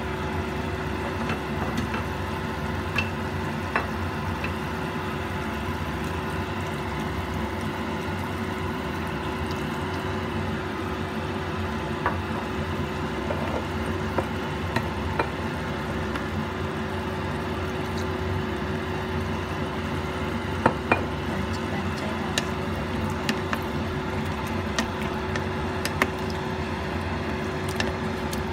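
Chicken and pork pieces simmering and sizzling in their juices in a stainless pot, a steady bubbling hiss with scattered sharp pops and clicks, over a steady low hum.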